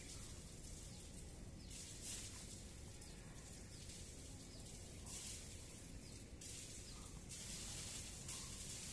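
Quiet outdoor ambience: a faint, even high hiss that steps louder and softer a few times.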